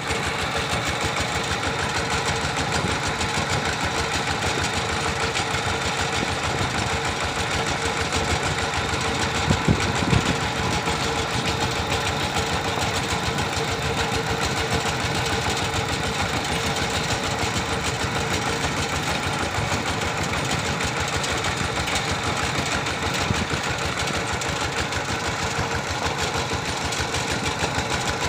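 Single-cylinder diesel engine of a two-wheel walking tractor running steadily under way, with a rapid even chugging. A couple of louder knocks come about ten seconds in.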